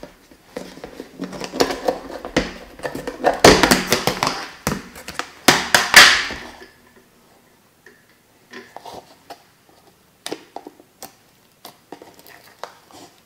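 A clear plastic food tub's snap-on lid is pried off with a run of crackling and snapping, loudest about six seconds in. After a short pause come scattered light clicks and taps as fingers handle the plastic tub.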